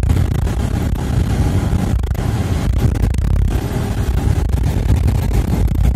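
Steady road noise of a moving car heard from inside: a low rumble of engine and tyres with a noisy hiss over it.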